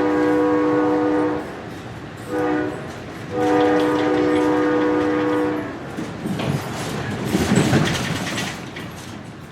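Train horn sounding three blasts, long, short and long, with several tones heard together. After the last blast comes the rumbling clatter of the train on the rails, which swells briefly and then fades out.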